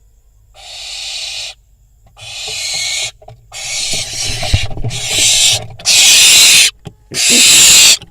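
Barn owl fledgling's harsh, rasping begging screeches, about five calls of roughly a second each with short gaps between them, growing louder through the stretch. Scuffling and knocks around the nest box sit between the middle calls.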